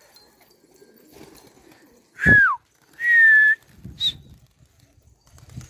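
Person whistling: a short loud whistle that slides down in pitch about two seconds in, then a longer steady whistle a moment later, and a brief high chirp about four seconds in.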